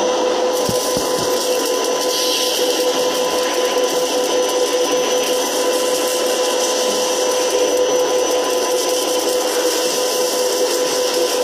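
Steady noise of running tyre-factory machinery: an even mechanical drone with a constant hum, unbroken throughout.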